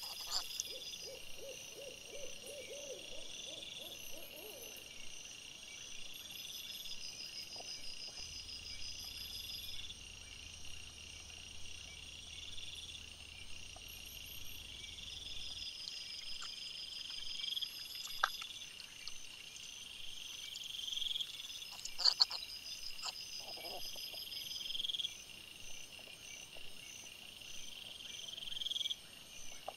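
Night insects chirping in a steady high, repeating chorus. In the first few seconds there is a short run of low, evenly pulsed calls rising slightly in pitch, and a few sharp clicks come about two-thirds of the way through.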